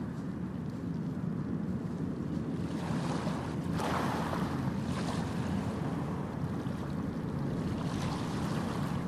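Harbour water sloshing and wind buffeting the microphone over a steady low rumble of ship engines, with a louder wash of water about four seconds in.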